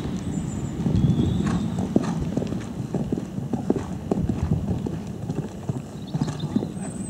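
Hoofbeats of a horse cantering on a sand arena surface: repeated dull thuds in a running rhythm, including the take-off and landing over a small log jump near the end.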